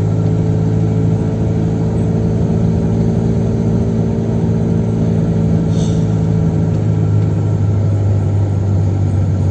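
Chevrolet Kadett 1.8's four-cylinder engine droning steadily at a constant highway cruising speed, with road noise, heard from inside the car.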